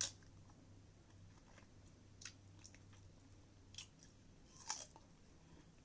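A person chewing and biting fresh strawberries, quiet wet chewing with a few short sharp mouth clicks and smacks, the loudest near four seconds in.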